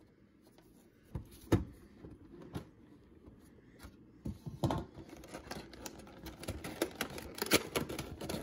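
A metal collector's card tin and its clear plastic insert tray being handled: the lid is pulled off and the tray lifted, giving scattered sharp clicks and taps over light scraping and rustling.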